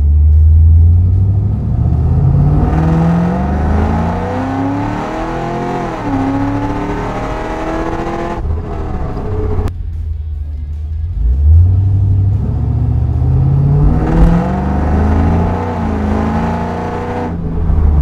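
2011 Cadillac CTS-V's supercharged 6.2-litre LSA V8, breathing through a Borla dual exhaust, accelerating hard twice. Each run rises in pitch, dips briefly at an upshift, climbs again and then cuts off suddenly.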